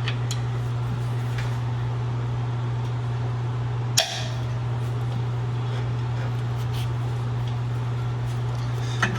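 Steady low machine hum, with a sharp click about four seconds in and another near the end.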